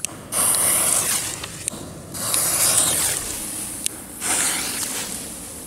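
Lit firecracker fuse of a Cialfir Trueno 4 Loki petard hissing and spitting sparks as it burns down. The rasping hiss is loudest over the first four seconds and fainter near the end.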